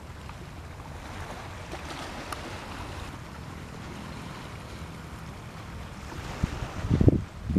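Steady low rumble of wind on the microphone by the sea, with a few stronger buffeting thumps near the end.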